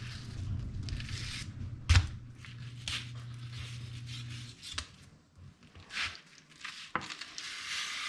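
Scraping, rubbing and cutting sounds of a grouper being handled and prepared on a kitchen counter, with a sharp knock about two seconds in. A low hum runs underneath and stops a little past halfway.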